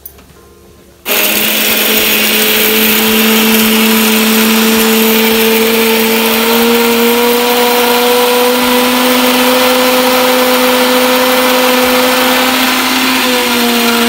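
Electric mixer grinder switched on about a second in and running steadily at full speed, its steel jar grinding fried dal, rice, onion and coconut into a fine paste. The motor's hum is loud and steady, its pitch rising slightly.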